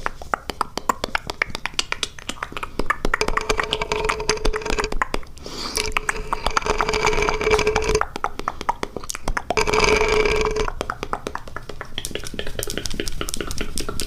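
Close-miked ASMR mouth sounds: a fast, continuous run of wet mouth clicks and taps. Three times this is joined by a steady pitched tone from the voice, each lasting one to two seconds.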